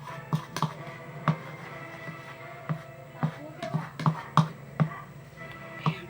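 Spoon knocking against a bowl at irregular intervals, about a dozen sharp taps, while stirring a shampoo-and-salt slime, over steady background music.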